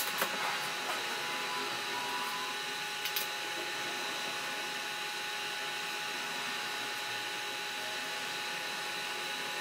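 Steady whooshing noise with a faint constant whine running through it, and a few light clicks near the start and about three seconds in.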